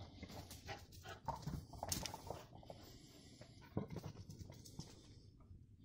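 A dog panting, faint, with scattered light clicks and knocks.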